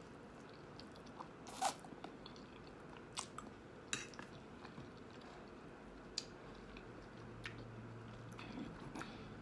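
Faint close-miked chewing and mouth sounds of someone eating spaghetti, with a few short sharp smacks and clicks spread through. A faint low hum comes in near the end.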